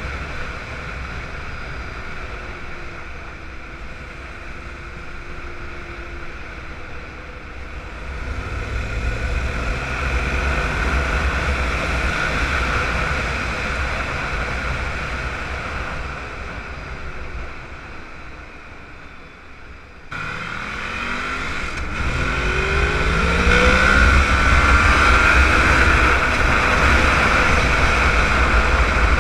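Suzuki RF400's inline-four engine pulling the bike along under way, heard with heavy wind rumble on the camera microphone. The engine note climbs about eight seconds in and sinks away again. There is a sudden jump in loudness about twenty seconds in, and the note then climbs again in rising sweeps as the bike accelerates.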